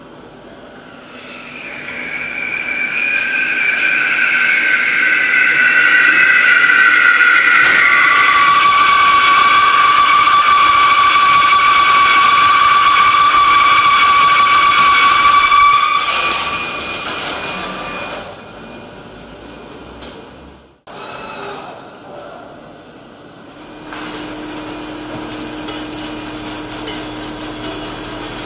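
Lathe turning tool cutting a large rotating metal ring, with a loud high-pitched whine from the cut that drifts down in pitch and then holds one steady tone before stopping abruptly. Quieter machine noise follows, ending in a low steady hum as a rotating tool works the surface.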